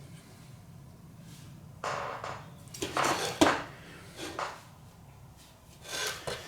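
Metal objects being handled on a workbench: a few short clattering knocks and scrapes, starting about two seconds in, over a low steady hum.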